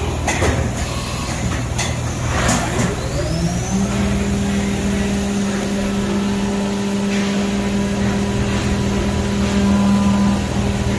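A few knocks and clanks, then a motor winds up with a rising pitch about three and a half seconds in and runs at a steady hum.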